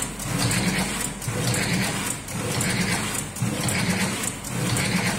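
Electric automatic cigarette-rolling machine running, its motor and gear mechanism working through a repeating cycle about once a second.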